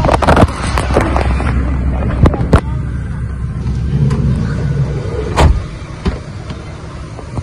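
Parked van's engine idling with a steady low rumble, broken by several sharp knocks and clicks. The loudest knock comes about five and a half seconds in, after which the rumble drops away.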